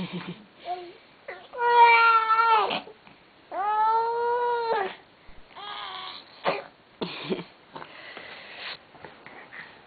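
Baby fussing and whining: two long, held cries of about a second each, then several shorter whimpers and grunts.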